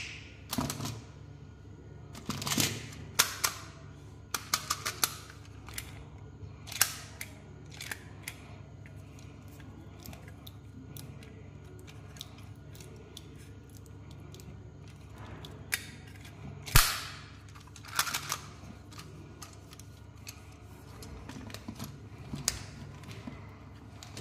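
Plastic candy packaging and hard plastic candy toys clicking, crackling and clattering as hands handle and pick items from a heap. The clicks come in scattered clusters, with one sharp snap about two-thirds of the way through, over a low steady hum.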